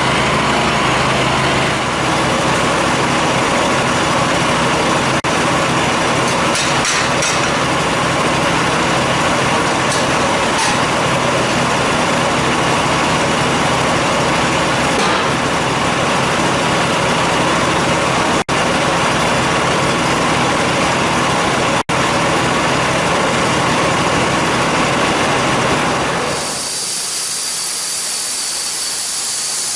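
Homemade sawmill running under load, its engine and blade sawing through a log with a loud, steady noise that cuts out briefly twice around the middle. Near the end the low part of the sound stops, leaving a steady high hiss.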